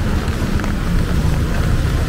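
Rainy city street: a steady low rumble of road traffic, with scattered light ticks of rain.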